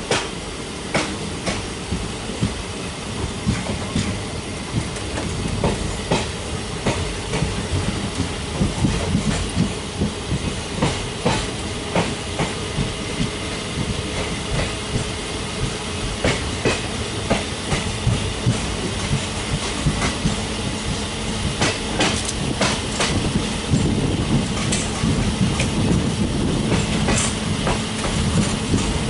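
Passenger train heard from aboard a coach as it pulls out and gathers speed. The wheels click sharply over the rail joints about once a second over a steady rumble and low hum.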